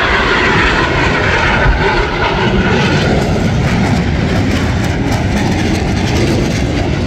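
Jet noise of a Blue Angels F/A-18's twin engines as it flies past; the higher hiss fades after about two seconds, leaving a steady low rumble.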